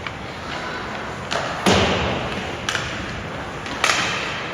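Sharp knocks and thuds echoing in an ice rink, four in all, the loudest about a second and a half in: pucks, sticks and players hitting the boards during an ice hockey game.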